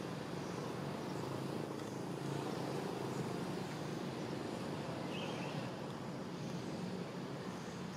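Steady outdoor background drone with no clear single source, and faint high ticks like insects; a short higher-pitched sound comes about five seconds in.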